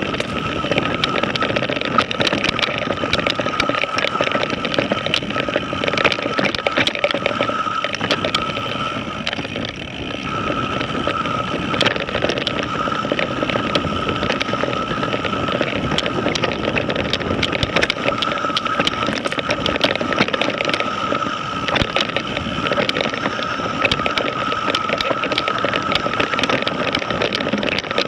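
Mountain bike descending a dirt singletrack at speed: tyres rumbling over dirt and a continuous rushing noise, with many small clicks and rattles from the bike. A steady high whine runs throughout and drops out briefly about ten seconds in.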